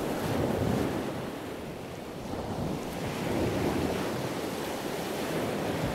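Rushing ocean surf, waves washing in and swelling twice, faded in under the opening title.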